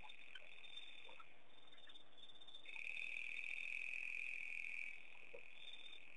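Steady, high-pitched night chorus of frogs and insects, with one louder trill starting about two and a half seconds in and lasting about two seconds.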